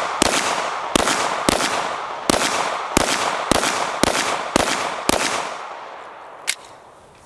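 Handgun with a red-dot sight firing a steady, paced string of nine shots about two-thirds of a second apart, each report followed by a short echo. It is a slow, deliberate control string, each shot pressed once the dot settles; the last shot comes about five seconds in.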